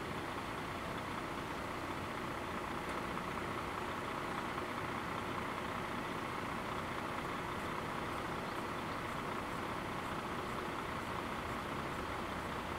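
Steady, even background noise of road vehicles, with a car idling at the closed level crossing.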